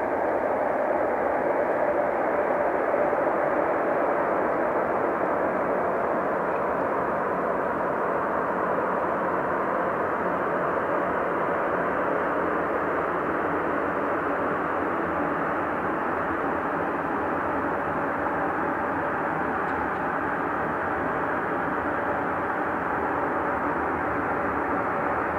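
Airbus A400M's four TP400 turboprop engines running with a steady drone as the aircraft taxis after landing.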